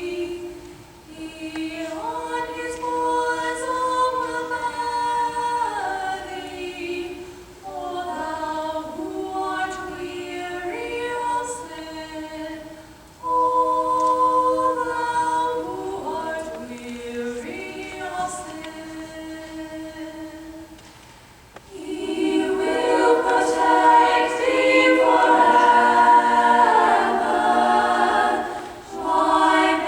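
Youth treble choir singing sustained phrases in several-part harmony. It grows quieter, breaks off briefly about two-thirds of the way through, then comes back in louder and fuller.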